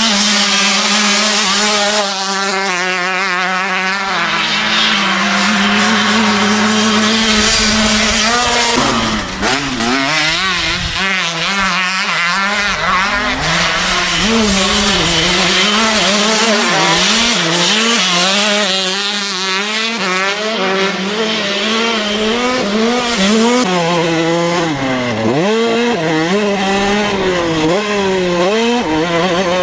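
KTM 125 single-cylinder two-stroke dirt bike engine running hard. It holds a steady high pitch for about the first eight seconds, then rises and falls over and over as the throttle is opened and closed.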